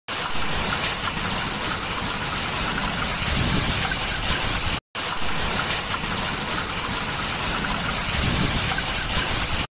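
Hailstorm downpour of ice and rain: a dense, steady hiss of hail and water. It cuts out for a moment about five seconds in, then carries on.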